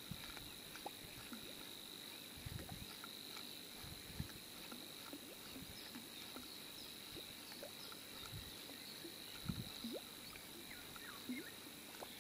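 Quiet waterside ambience: a steady high-pitched insect drone with faint scattered chirps, and a few soft low thumps now and then.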